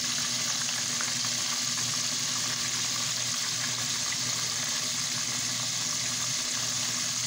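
Battered walleye strips deep-frying in a pot of hot oil: a steady, even sizzle of bubbling grease.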